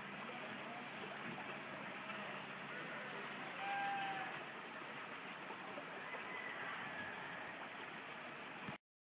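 Steady outdoor background hiss, with a faint short tone about four seconds in. The sound cuts off abruptly near the end.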